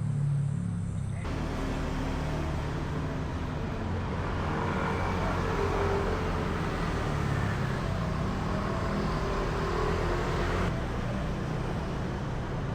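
Street traffic noise: a steady low rumble of vehicle engines. The background changes abruptly about a second in and again near the end.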